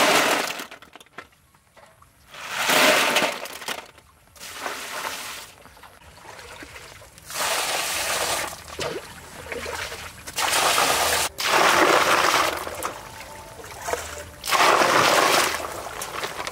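Snail shells clattering and grating together in water, in repeated bursts a second or two long, as the snails are stirred and rinsed by hand.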